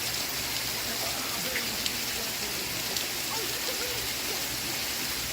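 Steady rain, an even hiss of falling drops, with faint muffled sitcom voices from a television underneath.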